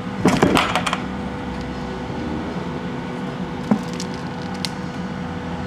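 Steady machine hum of shop equipment, holding a few even tones. A short clatter comes near the start, and a couple of faint clicks come later.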